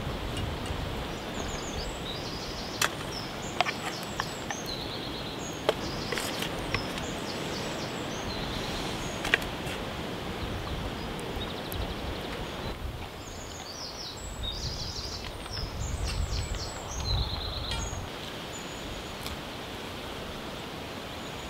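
Small songbirds singing short, repeated high chirping phrases over a steady outdoor wind hiss, with wind buffeting the microphone in low gusts a little after halfway. A few sharp clicks in the first half.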